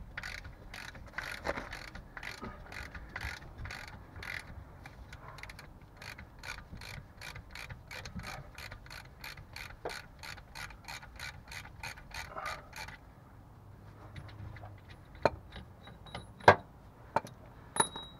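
Hand ratchet wrench clicking rapidly and evenly as it turns a bolt, plausibly the factory 18 mm rear differential bolt. The clicking stops about thirteen seconds in. A few sharp knocks follow, the loudest near the end.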